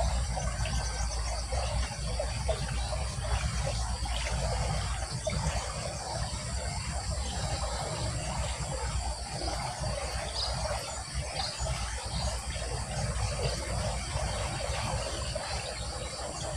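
Outdoor background of insects droning steadily over a low rumble, with a few faint high chirps around ten to eleven seconds in; no junglefowl crowing.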